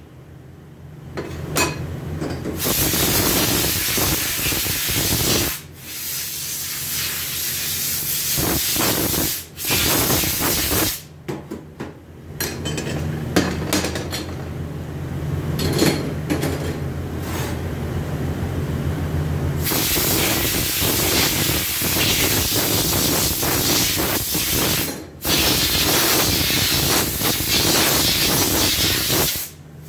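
Compressed-air siphon-feed spray gun hissing as it blasts solvent over automatic-transmission parts to clean them. It runs in long bursts with short breaks. In a quieter stretch in the middle a low steady hum is heard.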